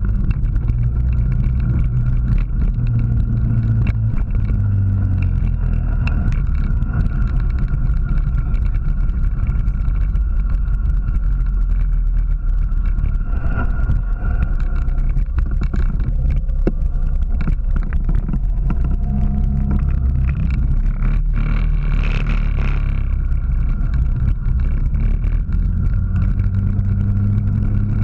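Vehicle engine running with road noise, its low drone rising and falling in pitch as the speed changes.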